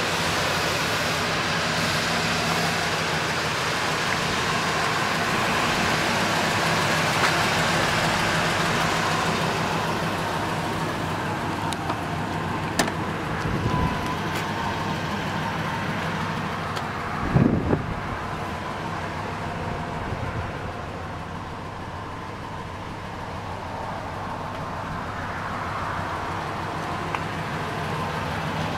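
Supercharged V8 of a 2003 Ford F-150 Harley-Davidson pickup idling steadily, with a couple of knocks and thumps about halfway through.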